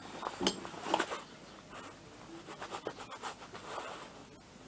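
Light clicks, taps and rustling from gloved hands handling small parts and tools, with sharper clicks about half a second and a second in.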